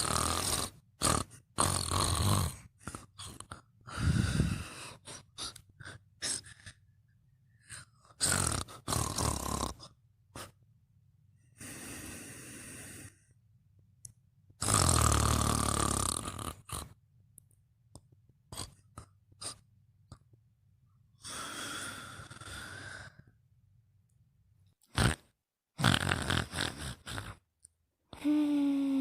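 A sleeper snoring and breathing irregularly: rasping snores about a second long every few seconds, with short snorts and puffs of breath between them. Near the end comes a brief pitched sound that falls in pitch.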